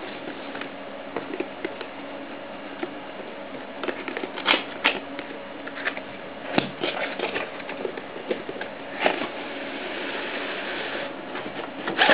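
Graphics card's cardboard retail box being handled and opened: scattered taps, knocks and scrapes of cardboard, then a longer scraping rush near the end as the black inner box slides out of the printed outer sleeve.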